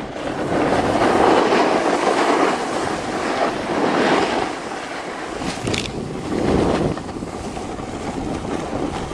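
Wind rushing over the microphone of a camera worn by a snowboarder on the move: a dense, steady rushing noise that swells and dips, easing a little in the second half.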